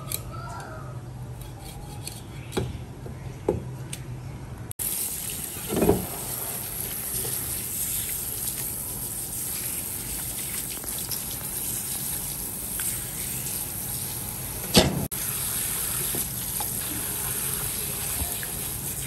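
Water running from a tap, a steady rush that starts about five seconds in, with two louder knocks over it; before it, a low hum with a few clicks.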